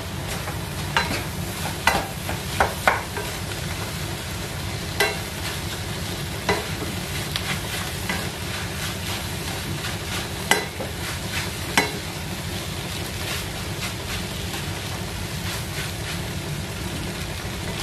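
Fried rice being stirred in a nonstick frying pan with a spatula: a steady frying sizzle, broken by irregular sharp knocks and scrapes of the spatula against the pan, several close together in the first three seconds and a few more spread out later.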